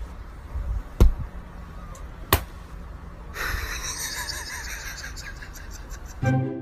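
Short, sharp slaps of a hand patting down onto another hand, twice: about a second in and again about a second later.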